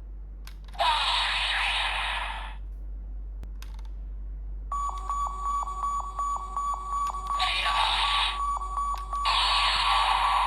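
Electronic sound effects from a DX Ultraman Trigger Guts Sparklence transformation toy's small speaker. A few plastic clicks and a short burst of noise come first, then a steady high beep pulsing about five times a second with more bursts of effect noise over it.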